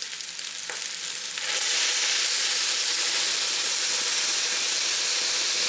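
Meat and onions sizzling quietly in a hot cast-iron Dutch oven, then about a second and a half in red wine is poured in and hits the pan with a sudden loud, steady hiss of boiling liquid and steam.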